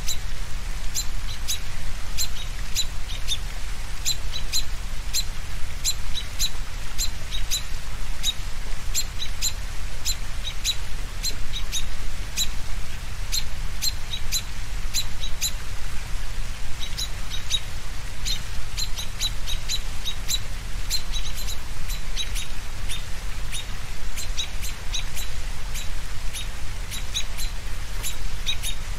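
Birds chirping: short, high chirps repeating a few times a second, with a brief lull a little past halfway, over a steady low rumble.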